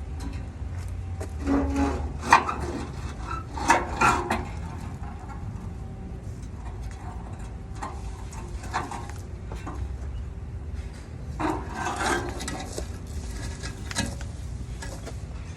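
Intermittent clinks and clanks of metal tools and parts being handled while a car body is unbolted from its frame. They come in short clusters a few seconds apart over a steady low rumble.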